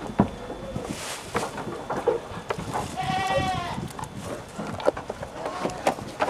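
A Saanen dairy goat bleats once, about halfway through. Around it come scattered sharp clicks and knocks from a hand pump being worked on a plastic pressure-sprayer tank, building up pressure.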